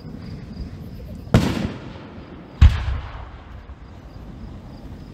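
Two aerial fireworks shells bursting: two sharp booms about a second and a quarter apart, the second the louder, each trailing off over about half a second.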